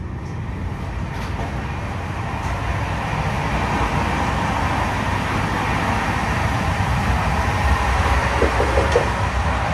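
Running noise of an LHB passenger coach at speed, heard from inside: a steady rumble and rush of wheels on rail. It grows louder about three seconds in, in the vestibule between coaches.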